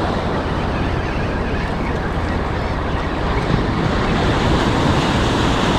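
Gulf surf washing steadily around the wader, with wind rumbling on the microphone.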